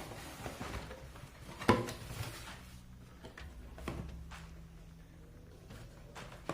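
Cardboard box being handled and opened: a sharp knock a little under two seconds in, another around four seconds, with smaller clicks and rustling between.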